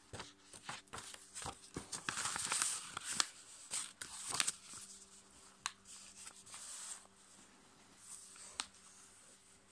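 A sheet of A5 copy paper being folded and creased by hand on a tabletop: rustling and crinkling, with many short sharp clicks as the folds are pressed flat, the loudest about three to four and a half seconds in.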